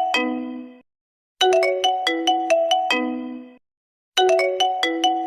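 Ringtone melody: a quick run of pitched notes ending on a held low note, repeating about every three seconds with short silent gaps between phrases.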